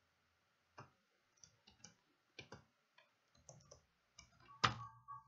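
Faint, scattered clicks of a computer mouse and keyboard, about eight over a few seconds, the loudest near the end.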